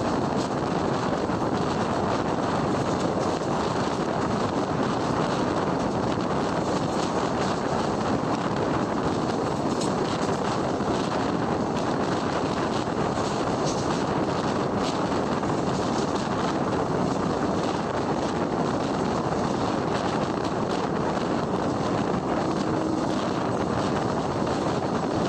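Steady rumble and rush of a passenger train running at speed, wheels on the rails, heard from the coach window with wind noise on the microphone.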